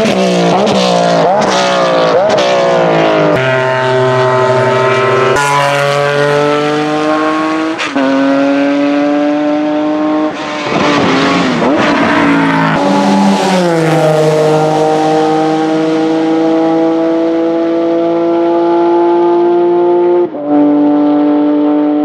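Porsche 996 GT3 RS and RSR race cars' 3.6-litre flat-six engines at full racing pitch: a run of quick downshifts with throttle blips near the start and again around the middle, then a long steady climb in revs as a car accelerates hard.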